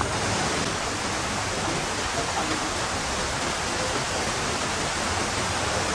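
Steady, even rush of water from the waterfalls and creek in a rocky gorge.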